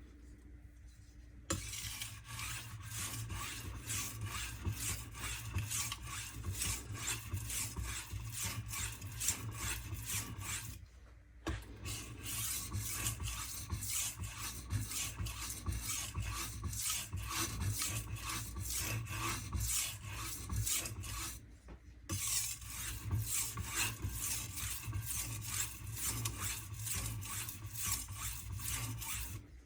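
A W2 steel kitchen knife edge being stroked over and over across a fine hard Arkansas sharpening stone, a steady run of rapid scraping strokes. It starts about a second and a half in and pauses briefly twice, about 11 and 22 seconds in.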